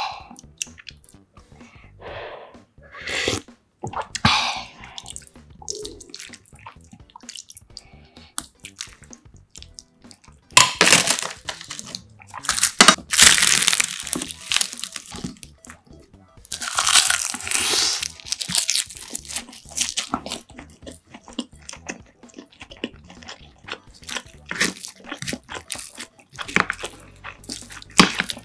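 Close-miked eating sounds: chewing and slurping of soup and rice, with many short clicks of spoon and chopsticks against a ceramic bowl. Three louder stretches of hissy mouth noise, each lasting a second or two, fall in the middle.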